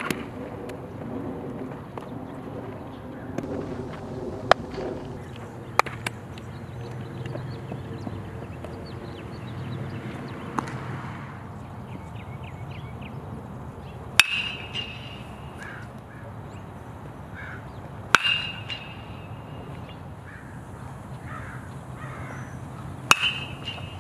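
A metal baseball bat hitting pitched balls in batting practice: three sharp, ringing pings about four to five seconds apart, in the second half. Earlier come several sharper knocks of ball work during infield drills, and birds chirp faintly throughout.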